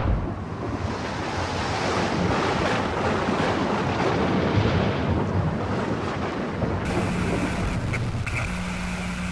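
Steady rushing wind noise, a storm-like sound effect, with a low steady hum and a higher steady tone joining about seven seconds in.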